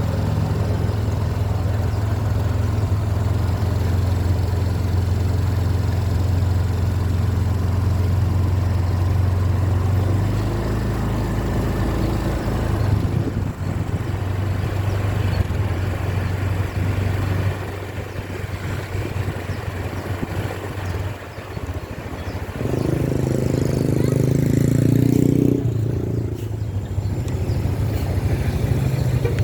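Large diesel bus engine running with a steady low hum. About ten seconds in the hum drops lower, and near the end a louder, higher engine note swells for about three seconds.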